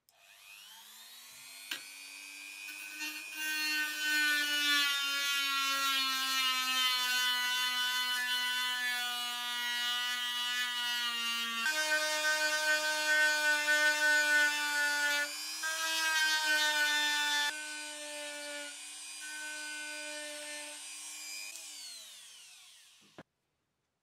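Rotary tool with a sanding drum spinning up with a rising whine, then sanding rust off a steel buckle part with a steady high whine and a rasping scrub. It winds down with a falling pitch and stops about a second before the end.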